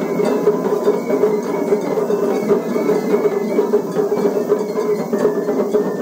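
Japanese festival hayashi from a float's drum ensemble: small taiko drums beaten in a fast, driving rhythm with a held flute line above, playing without a break.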